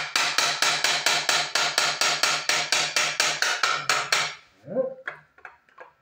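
Rapid, evenly spaced metallic knocks, about five or six a second for about four seconds, from a tool worked against a stuck water pump on a BMW 2.0 engine; a few lighter clicks and handling noises follow.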